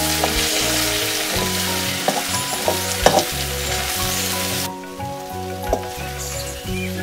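Sliced ash plantain frying and sizzling in a hot metal wok as it is stirred with a spoon, with a few sharp scrapes and knocks of the spoon against the pan. The sizzle cuts off suddenly about two-thirds of the way in. Background music plays throughout.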